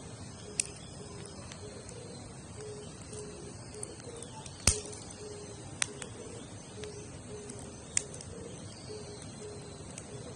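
Wood campfire burning with scattered sharp pops and crackles, four of them standing out and the loudest about halfway through.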